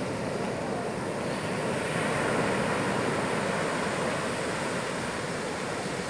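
Pacific Ocean surf breaking and washing up a sandy beach, a steady rushing that swells a little about two seconds in.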